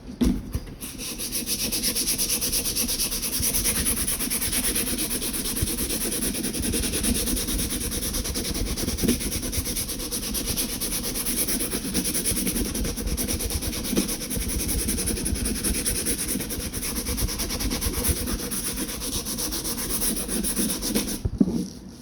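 Handle scales being hand sanded with coarse 60-grit sandpaper, a steady rasping rub of quick back-and-forth strokes that stops shortly before the end. The coarse grit is cutting deep scratches into the handle material to key it for epoxy.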